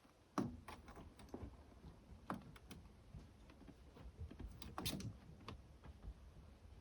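Kittens' paws stepping and scratching in cat litter: faint, scattered light clicks and ticks of shifting litter granules.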